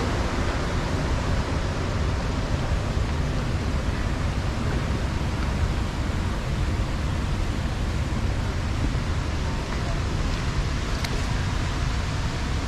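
Steady roar of fast-flowing river water and waterfalls running high, with a low rumble of wind on the microphone.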